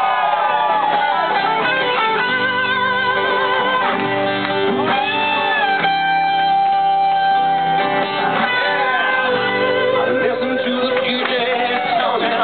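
Live rock band playing, led by guitars: a strummed acoustic guitar and electric guitars, with a Yamaha Motif keyboard. Held, wavering lead notes sound over the chords.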